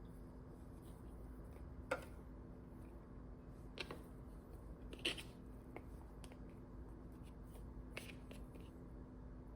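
A few faint, sharp clicks or taps, four of them spaced a couple of seconds apart, over a steady low electrical hum.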